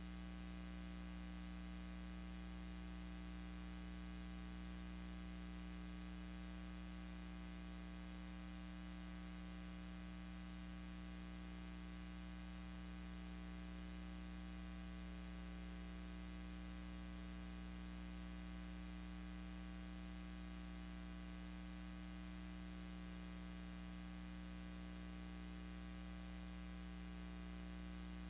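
Steady electrical mains hum with its overtones under a constant hiss, unchanging throughout; no other sound.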